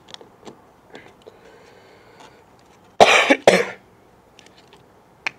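A man coughs twice, in quick succession, about three seconds in. Before that, faint clicks and taps of fingers handling a bottle.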